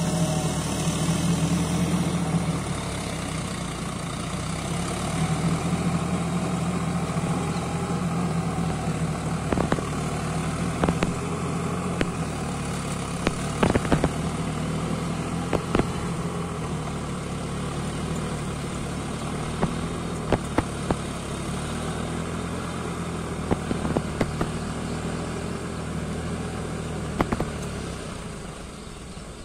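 Deutz-Fahr 70 hp tractor's diesel engine running steadily under load as it pulls a heavy rotavator through mud. Scattered sharp knocks and clatter come in from about ten seconds in, and the sound grows fainter near the end.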